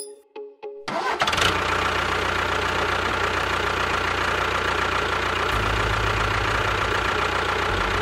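A tractor engine starts about a second in and then runs steadily, after a few light plinking music notes.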